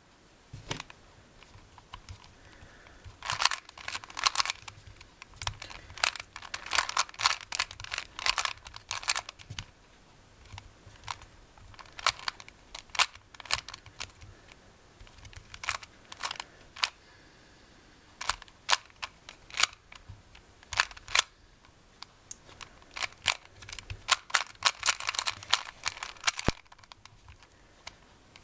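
Plastic 2x2x2 Rubik's cube being turned by hand: quick clattering clicks as its layers turn, in flurries separated by short pauses.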